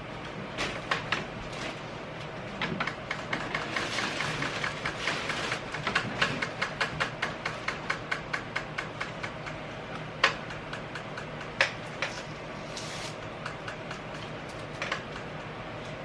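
Household items being handled while unpacking: scattered clicks, then a fast run of evenly spaced small clicks from about three to nine seconds in, followed by a few single sharp knocks, over a steady low room hum.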